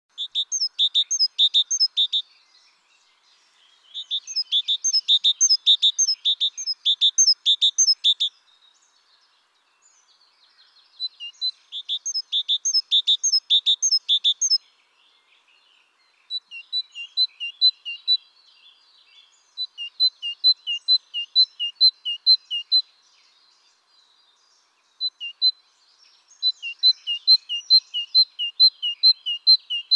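A songbird singing repeated phrases of quick, high, evenly spaced two-note chirps, about four notes a second. Each phrase lasts a few seconds, with short pauses between them.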